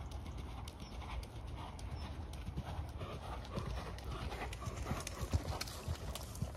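A pony's hoofbeats on a soft arena surface as it is ridden around the school. The dull, even thuds grow louder as it passes close, about four to six seconds in.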